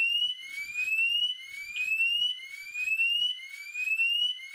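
Homematic IP indoor alarm siren (HmIP-ASIR) sounding a test alarm: a loud electronic tone that rises in pitch and repeats about once a second, a tremendous racket.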